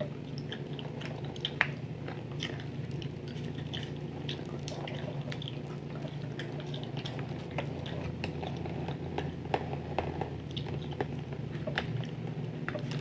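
Close-up gum chewing: irregular wet clicks and smacks over a steady low hum.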